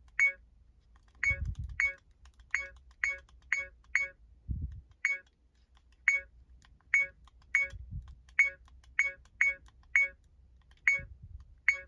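70mai A510 dashcam's button tone: a short electronic beep at each press of its setting buttons, about eighteen beeps at an uneven pace of one to two a second. A few low thumps of the unit being handled come in between.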